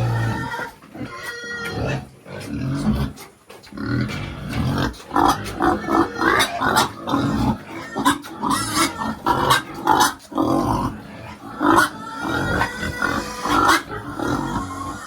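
Pigs in a pen calling out at feeding time, with a rapid run of short, loud calls one after another. It is sparser at first and comes thick and fast from about four seconds in.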